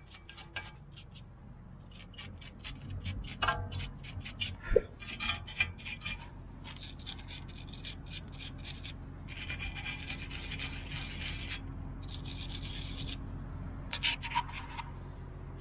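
Hand tool scraping and rubbing rust off the bare wheel hub face of a car, in irregular strokes with a couple of longer bouts of scraping, over a steady low hum.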